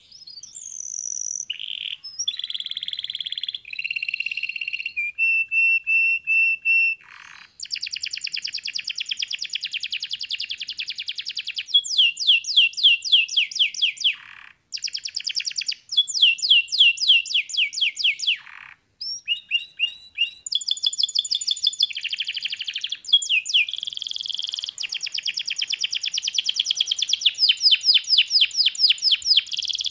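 Domestic canary singing a long song of rapid trills and rolls, each phrase a fast run of many repeated notes. The song is broken by three brief pauses.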